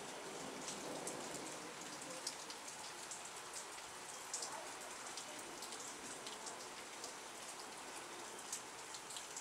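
Steady rain falling during a thunderstorm, with frequent sharp ticks of individual drops striking close by.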